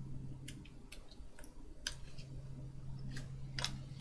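Scattered small sharp clicks and taps of tools and small parts being handled at an electronics repair bench, over a steady low hum.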